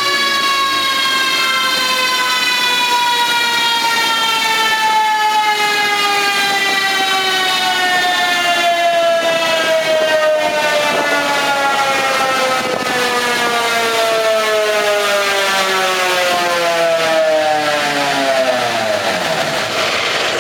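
Mitsubishi Pajero T2 rally car's drivetrain and tyres spinning on chassis-dynamometer rollers as they coast down: a whine that falls slowly and steadily in pitch, then drops away quickly near the end. A steady rushing noise runs underneath.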